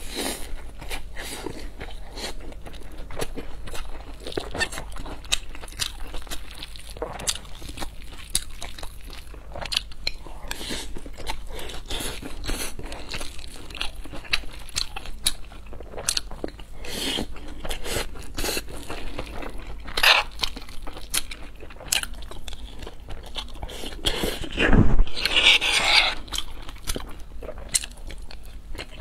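Close-miked chewing of mouthfuls of fried rice with vegetables and Spam: irregular wet mouth clicks and soft crunches. A louder bump and rustle comes near the end.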